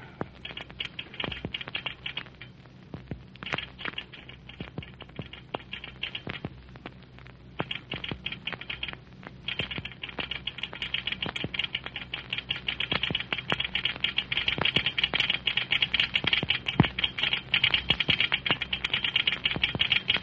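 Telegraph clicking out Morse code: fast runs of clicks with short pauses, then steadier and louder from about halfway. It is a station agent wiring down the line to a train's next stop.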